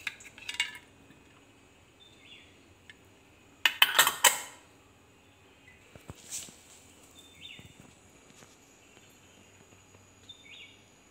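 Metal screw-on lid clattering and clicking against a glass jar as it is put on and closed, with the loudest burst of clicks about four seconds in. Faint short chirps come now and then.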